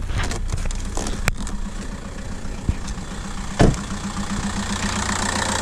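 VW Golf Mk5 1.9 TDI four-cylinder diesel engine idling steadily from a cold start. A single loud thump about three and a half seconds in, with a few lighter clicks before it.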